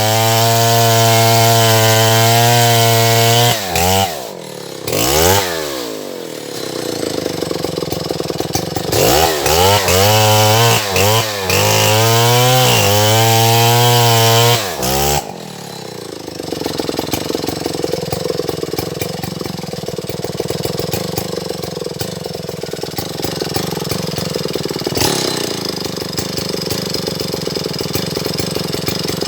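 Stihl MS070 two-stroke chainsaw cutting into a durian tree at full throttle, its engine pitch dipping and rising as the bar bites and the throttle is worked. About halfway through it drops to a quieter, lower, rougher running.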